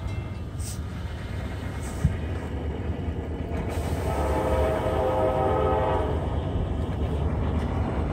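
Distant freight locomotive air horn sounding one chord blast of about two seconds, beginning about four seconds in, over a steady low rumble.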